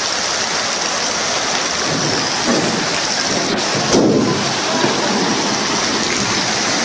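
Heavy rainstorm: a steady, loud downpour, with a louder surge about four seconds in.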